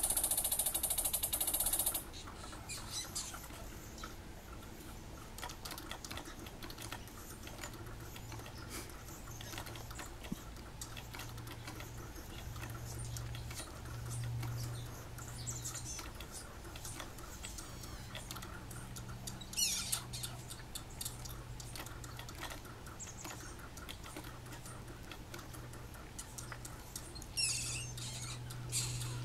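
Squirrel claws scratching and scrabbling on a wooden birdhouse and tree bark, heard as a long run of small irregular clicks over a faint low hum. Two short high sounds fall in pitch, one about two-thirds of the way in and one near the end. A loud rushing noise fills the first two seconds and cuts off suddenly.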